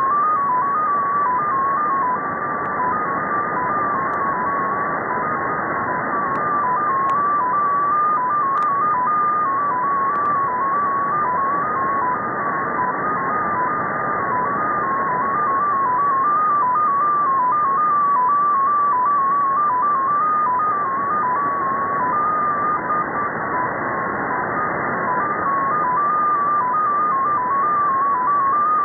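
Russian data station XPA2 received on shortwave in upper sideband: a single tone hopping among a few pitches several times a second, over steady receiver hiss.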